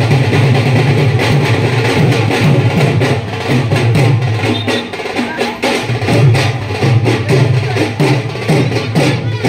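Music with a steady drum and percussion beat.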